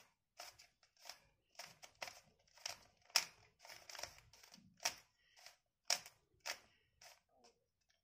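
Stickerless plastic 3x3 Rubik's cube being turned through an algorithm: a run of faint, short plastic clicks as the layers snap round, about two a second and unevenly spaced.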